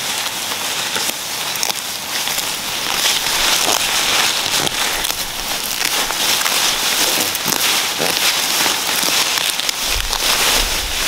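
Leafy plants rustling and crackling close by as their leaves and stems are handled and picked: a dense, uneven run of small crackles and snaps. A low rumble joins near the end.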